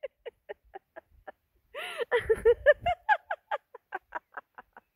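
A woman laughing in rapid rhythmic 'ha-ha' pulses, the deliberate laughter of a laughter-yoga exercise. The pulses fade, then a louder burst of laughter comes about two seconds in and trails off again.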